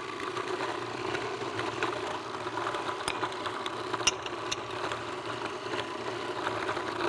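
Food processor motor running steadily, its blade spinning a thick, sticky carob, date and pecan mixture, with a couple of sharp clicks near the middle.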